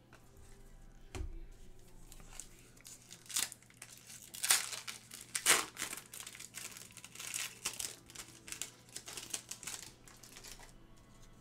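A foil trading-card pack being torn open and its wrapper crinkled by hand: irregular crackles and sharp tearing snaps, loudest about four to six seconds in, after a soft knock about a second in.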